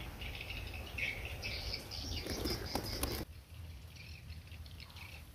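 Outdoor wildlife ambience of high chirping calls over a steady low rumble. A crackling rustle builds about two to three seconds in, then the sound cuts abruptly to quieter, sparser chirps.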